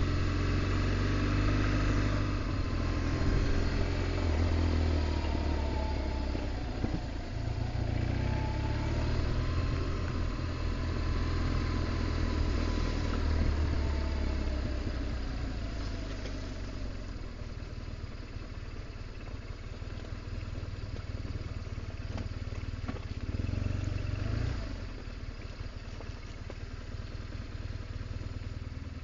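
BMW R1200GS Adventure's 1170cc flat-twin engine running as the bike is ridden in slowly. The engine then settles to a quieter, steady run from about halfway, with a brief rise in engine sound about 24 seconds in.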